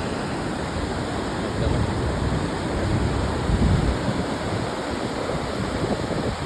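Steady rush of white water at a river waterfall, with low gusts of wind buffeting the microphone.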